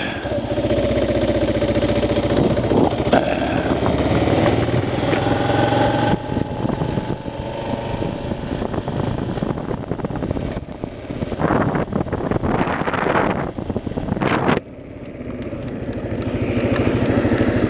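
Kawasaki KLR motorcycle's single-cylinder engine running under way, its note rising through the first half. The sound drops off suddenly about three-quarters of the way through, then builds again as the bike pulls back up to speed.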